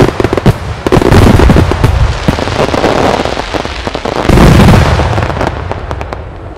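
Professional display fireworks going off in a dense barrage: a rapid run of shell bangs over a continuous rumble. A heavy cluster of bursts comes about four and a half seconds in, then the bangs thin out and fade near the end.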